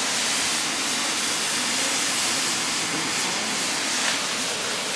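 Volcanic fumaroles venting sulfurous steam from the ground with a loud, steady hiss.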